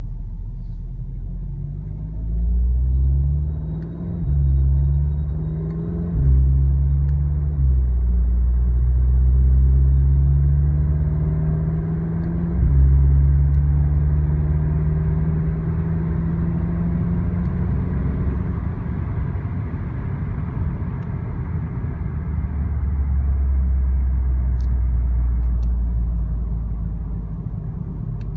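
Audi S3 8V's turbocharged 2.0-litre four-cylinder engine and exhaust heard from inside the cabin at low revs, with the exhaust flaps deactivated by coding. The engine note rises and falls several times in the first few seconds, then holds a steady low drone while cruising.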